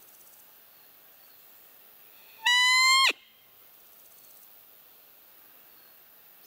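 Roe deer call (lure) blown once: a single high, piping note of about half a second that rises slightly and then drops sharply at the end. It imitates a roe doe's fiep to draw in a rutting buck.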